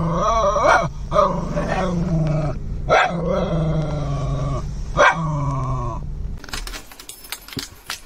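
Wire-haired terrier howling in a series of long, wavering notes, over the low rumble of a moving car. The howling stops about six seconds in and gives way to faint clicks and rustling.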